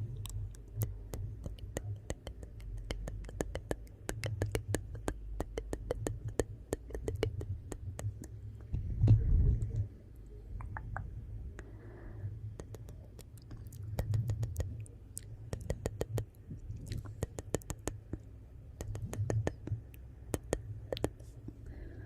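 Wood fire burning in a fireplace: a low rumble of flames with dense, irregular crackles and sharp pops of burning logs, swelling loudest about nine seconds in.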